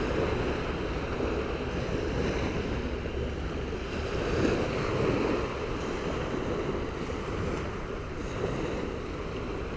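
Small waves breaking and washing on the shore, with wind on the microphone: a steady rushing noise that swells a little about halfway through.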